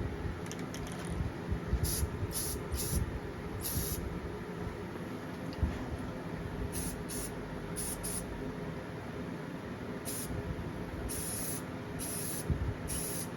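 Aerosol clear coat sprayed onto a lure in about a dozen short hissing bursts.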